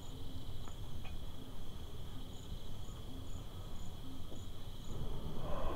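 Crickets chirping: a steady high trill with short higher chirps every half second or so, over a low rumble.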